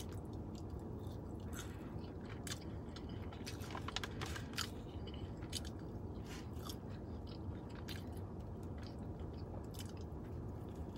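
Chewing and crunching of fried food, French fries and a breaded Cajun flounder fish sandwich, with scattered crisp clicks and a bite into the sandwich near the end, over a steady low hum.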